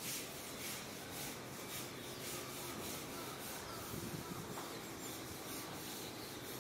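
Faint outdoor background: a soft steady hiss with faint high-pitched pulsing, about four pulses a second.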